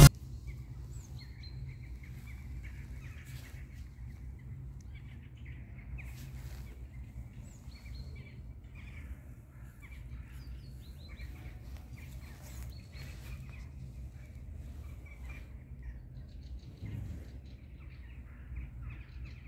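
Outdoor ambience: small birds chirping and calling in short, scattered bursts over a steady low rumble.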